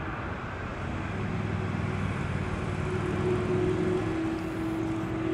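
Jet engine noise from airliners on the runway: a Boeing 747-400 rolling out after landing, with a twin-engine airliner passing in front. A steady rushing noise with a humming tone that drops slightly about four seconds in, loudest around three to four seconds in.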